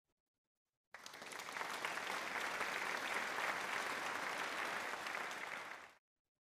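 Applause sound effect, a crowd clapping, starting suddenly about a second in and cutting off abruptly shortly before the end.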